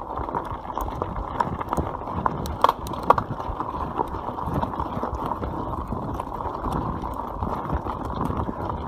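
YT Capra mountain bike rolling fast down a loose gravel track: tyres crunching over stones, with a constant rattle of chain and frame and two sharper knocks about three seconds in.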